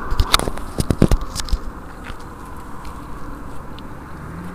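Footsteps crunching on a dry dirt slope, a few sharp steps and scuffs in the first second and a half, then softer shuffling. Near the end a steady low hum comes in.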